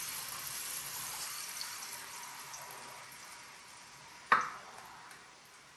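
Blended green salsa sizzling as it hits hot oil in a frying pan: a loud hiss that fades steadily as the pan cools under the sauce. About four seconds in comes a single sharp knock as the plastic blender jar is tapped against the pan to empty it.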